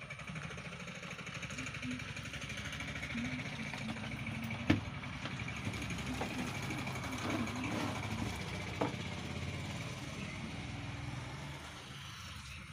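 A steady, rough engine-like rumble runs throughout and fades near the end. Two sharp clicks come through, about five seconds in and again near nine seconds.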